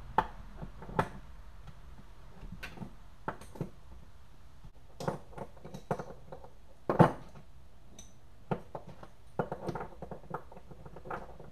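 Adjustable wrenches clinking and knocking against steel hydraulic hose fittings while a fitting is being tightened: irregular short, sharp clicks, the loudest about seven seconds in.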